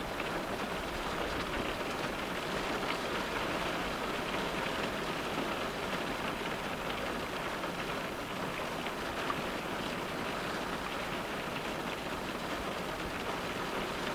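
Rain falling steadily on a car's glass: a dense, even patter of many small drop ticks with no let-up.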